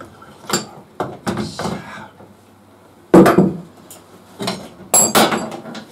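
Sharp knocks and metal clanks as a motorcycle's rear wheel and its loose parts are worked out of the swingarm. There are several separate hits; the loudest comes about three seconds in, and a quick clatter follows near the end.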